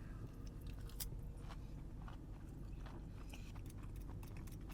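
A person chewing a mouthful of gravy-soaked disco fries with cheese: faint wet chewing with scattered soft clicks.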